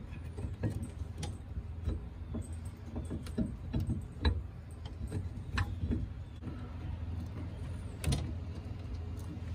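Metal camper tie-down bracket being slid and worked into place on a pickup's bed rail: scattered clicks, taps and scrapes of metal against the rail, the sharpest knock about eight seconds in, over a steady low hum.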